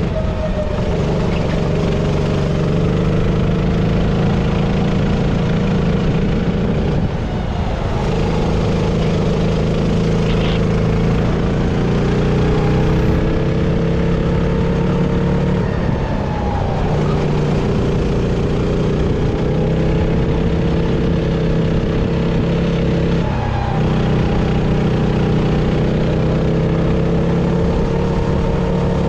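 Sodi RT-8 rental kart's engine running hard onboard at racing speed. Its revs dip briefly three times, about a third of the way in, past the middle and about three-quarters through, climbing back each time.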